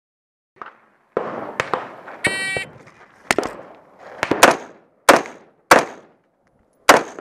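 A shot-timer's start beep, then an AR-15 rifle firing about six sharp shots, spaced roughly half a second to a second apart, two of them close together in the middle.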